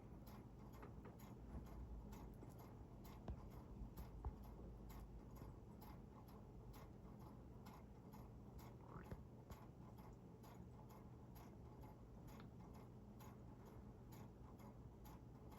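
Near silence with faint, even ticking, about three ticks a second, over a low steady hum.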